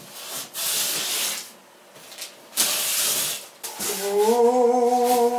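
Knife slitting the packing tape on a cardboard box and the tape ripping as the flaps come open: two tearing strokes, each about a second long. Near the end a man hums one steady note for about two seconds.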